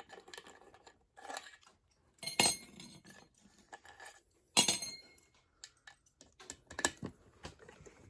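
Metal parts pan and tools clanking and clinking as they are handled and set down. Three sharp, ringing clanks, about two and a half, four and a half and seven seconds in, stand out among lighter clinks.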